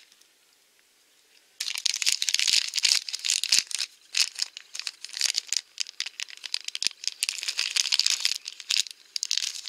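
Thin yellow plastic blind-bag wrapper crinkling and crackling as fingers squeeze and pull at it, trying to tear it open; the wrapper resists. The crinkling starts abruptly about a second and a half in, after a near-silent moment.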